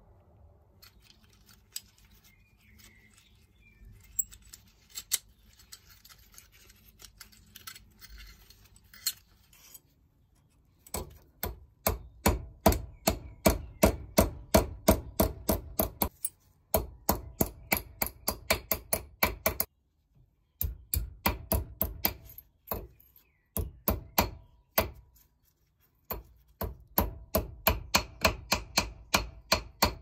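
Ball-pein hammer tapping a small steel padlock part against a steel block, in quick runs of about four or five sharp metallic strikes a second with short pauses between runs: the bent part is being flattened. The first ten seconds hold only faint handling clicks and scrapes before the hammering starts.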